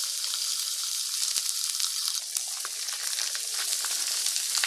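Meat sizzling steadily in a hot pan, with scattered small crackles and pops of fat.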